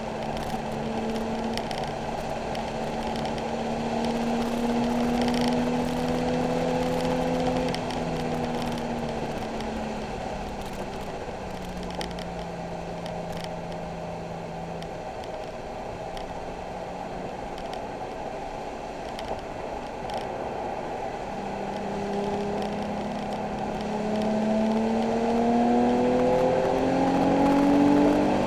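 Nissan 370Z's 3.7-litre V6 running at speed on track, its note climbing slowly under acceleration for the first several seconds, then dropping and holding lower and steady, then climbing again near the end, over a steady rush of road noise.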